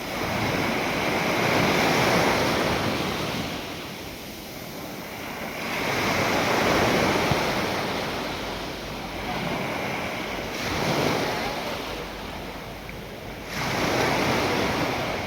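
Mediterranean sea waves breaking and washing up the shore, surging four times about every four seconds, the loudest near the start and around the middle.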